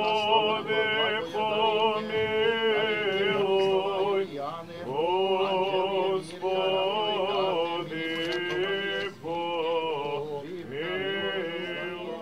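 Serbian Orthodox priests chanting a memorial service (pomen): male voices singing long held notes that bend and change every second or two.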